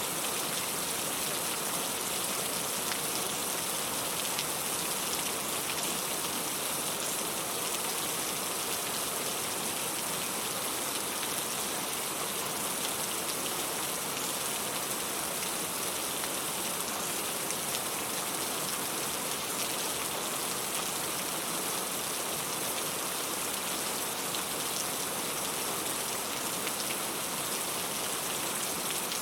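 Steady rain falling: an even hiss dotted with countless small drop ticks, unchanging throughout.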